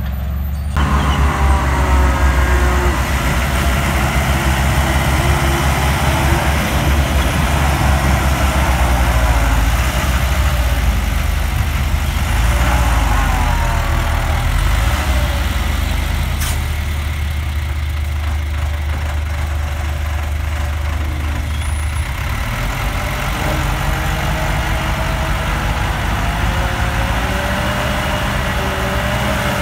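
A dump truck's diesel engine runs steadily while its hydraulic bed raises to tip a load of sand. The deep engine rumble eases about two-thirds of the way through.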